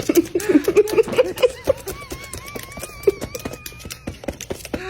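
A parrot making rapid irregular clicks, with short chattering calls in the first second or so and a wavering whistle that runs for about two seconds in the middle.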